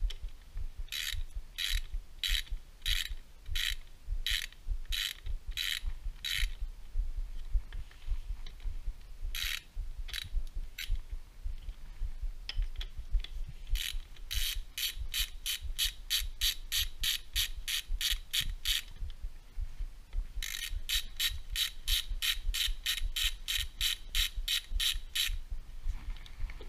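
Hand ratchet wrench clicking as bolts are run out of the engine. The clicks come in runs with pauses between, the later runs faster.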